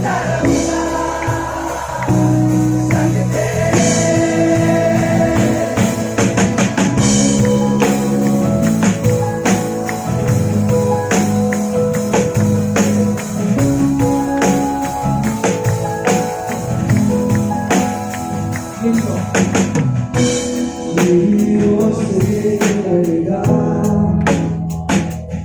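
Live band playing a Hindi Christian worship song, with singing over instruments and a steady percussion beat.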